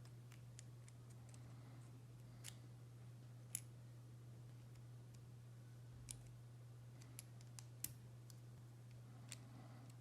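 Sharp plastic clicks of LEGO Technic pieces being fitted together, about seven scattered ones, the loudest about three and a half seconds in, over a faint steady low hum.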